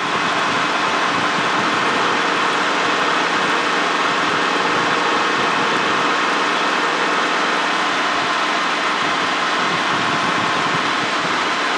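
Helicopter engine and rotor noise heard inside the cockpit in cruise flight: a steady, even rush with no change.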